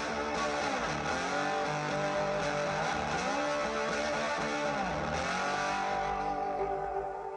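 Electric guitar music with sliding notes played back through a DIY bass-reflex speaker during a listening test, fading down near the end.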